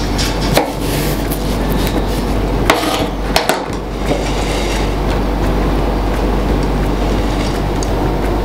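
A kitchen knife cutting through apple and knocking on a plastic cutting board, a few sharp taps in the first half, over a steady background sound.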